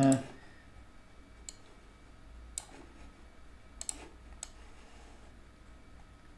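About five short, sharp clicks from working a computer drawing program, scattered and isolated, with two close together about four seconds in, over faint room noise.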